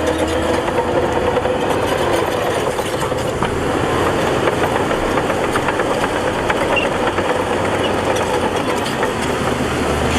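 Heavy diesel earthmoving machinery running steadily, with a continuous rattle and clatter over the engine.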